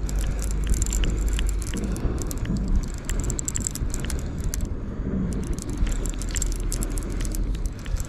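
Fishing reel being cranked against a hooked catfish, with dense, irregular clicking and rattling over a low rumble.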